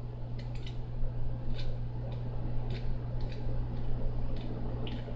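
Light, irregular ticks of a knife blade knocking against a small plastic cup as liquid is stirred, over a steady low hum.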